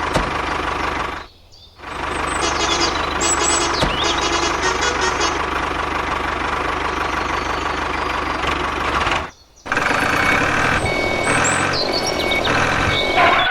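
A vehicle engine running steadily. It breaks off briefly twice, about a second in and again about nine seconds in, and faint repeated high-pitched tones come and go over it.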